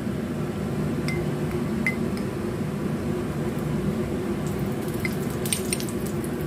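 Cooking oil poured from a bottle into an empty stainless-steel wok, with a few light clinks, over a steady low hum.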